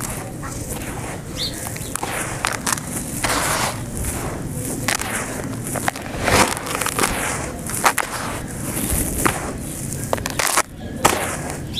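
Hands digging and raking through coarse dry grit in a bucket, with irregular crisp crunching and rustling as the grains grind and shift. Near the end a scooped handful pours back into the bucket in a gritty rush.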